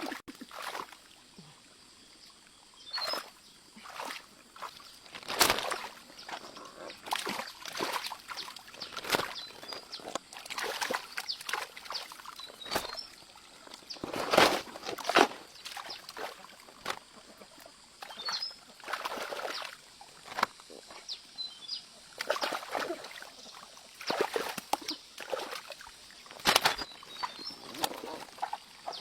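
Water splashing and sloshing in irregular bursts, as from someone moving about in shallow stream water, with faint bird chirps now and then.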